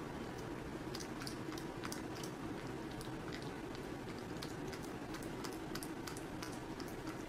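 A cat chewing and licking at a peeled banana: many small, irregular wet clicks, over a steady low hum.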